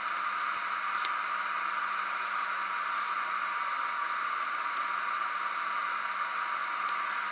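TIG welding arc burning on steel as the torch lays a weld with hand-fed filler rod: a continuous, even hiss with a faint steady hum beneath it.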